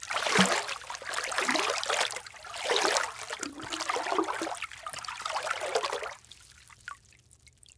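Water splashing and trickling in several uneven swells, fading out after about six seconds.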